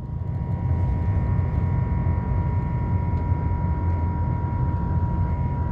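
Airbus A350-1000's Rolls-Royce Trent XWB engines at takeoff thrust, heard from inside the cabin as the jet rolls down the runway and lifts off. A loud, steady low rumble runs under a constant high engine whine.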